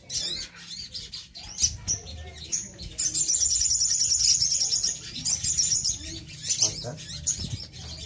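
Several caged sogon (brown-throated sunbirds) calling together with sharp high chirps. About three seconds in one breaks into a fast, high trill lasting about two seconds, followed by a shorter trill.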